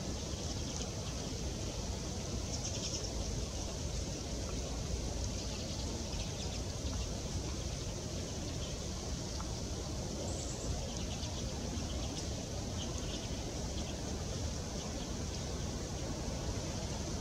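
A flock of common redpolls calling: scattered short, high chips and twitters, faint against a steady low rumble of background noise.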